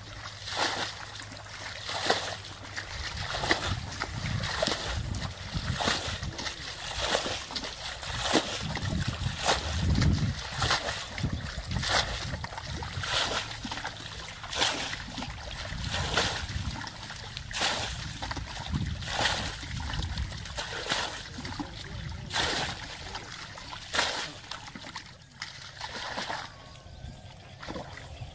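Water in a shallow stream splashing over and over, about one sharp splash a second with a churning slosh beneath, until it eases off near the end.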